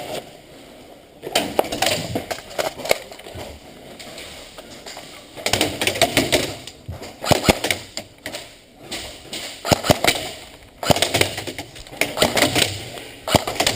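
Airsoft guns firing, rapid sharp snaps and clicks in several short bursts.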